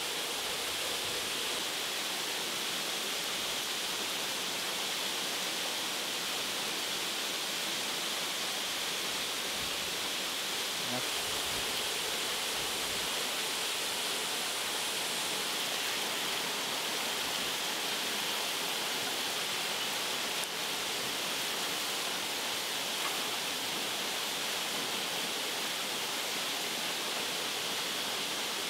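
Steady rush of a rocky stream or small waterfall flowing.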